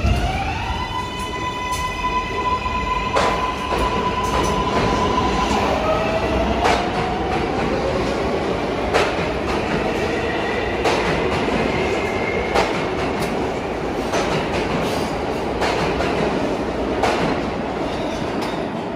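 New York City Subway train running under electric power. The motor whine rises in pitch at the start, holds steady, then rises again about six seconds in, over the rumble of the wheels on the track. Sharp clacks come every second or two as the wheels cross rail joints.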